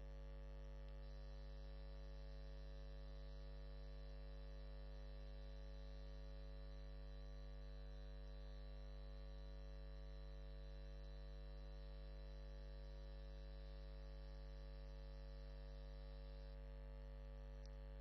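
Steady electrical mains hum, a low buzz with a stack of overtones, with a faint thin high whine over most of it; no machine strokes are heard.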